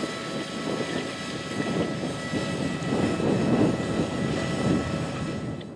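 Challenger MT855B track tractor, its Caterpillar C15 engine running steadily under load while pulling a John Deere air drill and commodity cart through the field, with the steady hum of the cart's fan that blows seed through the drill. The sound fades out near the end.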